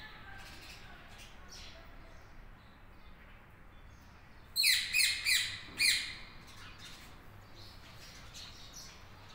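Rose-ringed parakeets screeching: a quick run of four harsh calls about five seconds in, with only faint background between.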